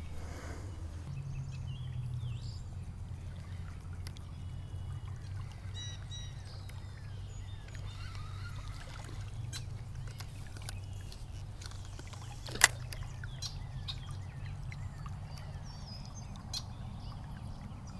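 Steady low rush of a creek's flowing water, with faint bird chirps now and then and one sharp click about two-thirds of the way through.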